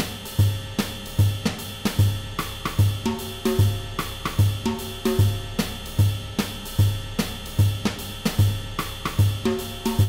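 Background music with a drum kit: a steady kick-drum beat about every three-quarters of a second under hi-hat and cymbal strokes.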